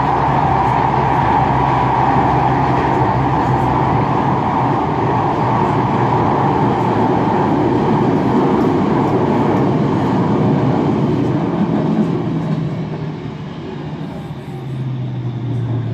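Manchester Metrolink tram at speed, heard from inside the passenger car: steady rumbling and rolling of steel wheels on rail. The noise eases and turns quieter about twelve seconds in as the tram slows for a stop, with a low steady hum near the end.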